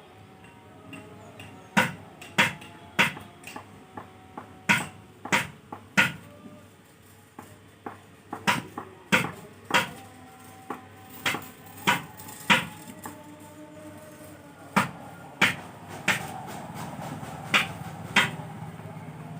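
A series of sharp, irregular clicks and knocks, some in quick pairs, over faint steady tones.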